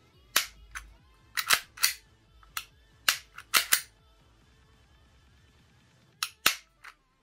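Sharp mechanical clicks and clacks from an Umarex Glock 17 Gen 5 airsoft pistol's slide and trigger being worked by hand: about a dozen clicks in quick clusters, a pause, then two more near the end.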